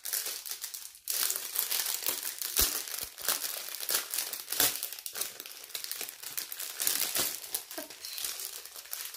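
Thin plastic sachets of diamond-painting resin drills crinkling as they are handled, with a few sharp clicks mixed in.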